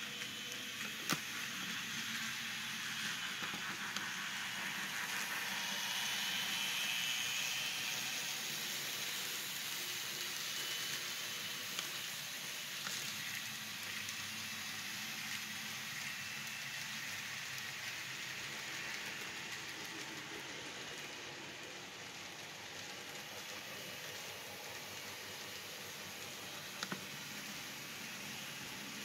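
Model train rolling along the layout's track: a steady hiss and rattle of small wheels on rail, with a few sharp clicks.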